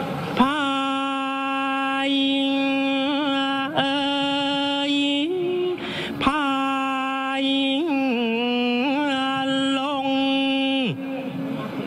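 Thai royal barge chant (kap he ruea) sung by a single lead chanter: long held notes with wavering ornaments, with a short break about halfway through, and the voice stops shortly before the end.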